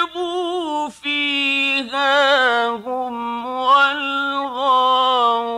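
A man's voice reciting the Qur'an in the drawn-out melodic (mujawwad) style. He holds long notes with wavering, ornamented turns in pitch and breaks off briefly about a second in.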